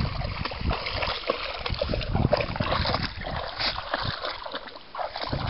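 A dog wading through shallow lake water, its legs churning the water in a run of quick, irregular splashes.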